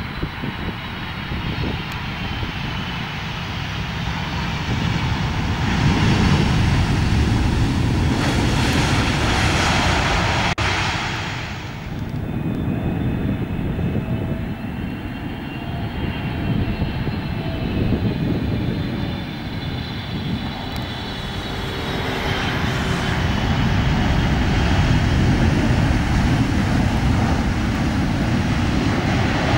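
Jet engines of landing airliners. A Boeing 747-400's four engines rumble after touchdown, loudest several seconds in and then fading. A Boeing 777's engines then whine on approach and swell as it touches down and rolls past near the end.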